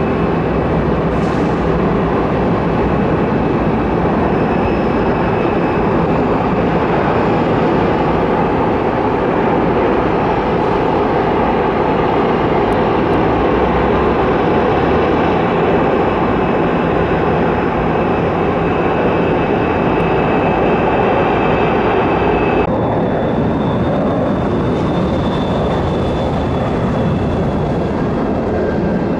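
Jet airliner engines: a loud, steady noise with a high fan whine over it. About three-quarters of the way through, the tone changes abruptly and a different, higher whine comes in.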